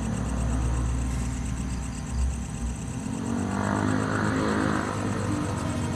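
A steady low mechanical hum like an engine running, with a faint high whine over it and a brief swell of hiss in the middle.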